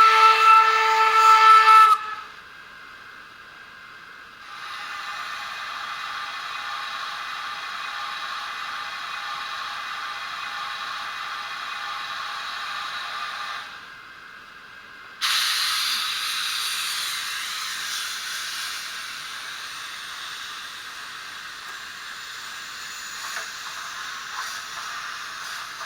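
Sampled steam sounds from the sound decoder of a Fleischmann BR52 N-scale model steam locomotive. A chord steam whistle ends about two seconds in. From about four seconds to about fourteen there is a steady steam hiss with faint tones in it. At about fifteen seconds a loud steam hiss starts suddenly and slowly fades.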